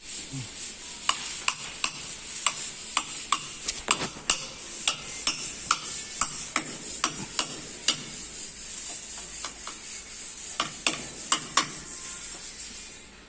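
Steel being arc-welded: a steady sizzling hiss with frequent sharp, irregular crackles and pops.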